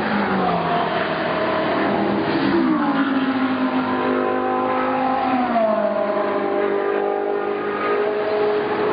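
GT race car engines running hard at speed, their pitch dropping noticeably about half a second, two and a half seconds and five and a half seconds in, then climbing again.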